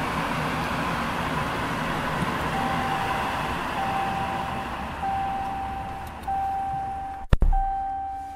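Ram 1500's 5.7 L Hemi V8 running at idle, fitted with a newly installed K&N cold air intake. A dashboard chime starts about two and a half seconds in, sounding as a row of steady tones about a second long. Near the end a door shuts with a loud thump, and the engine noise drops off.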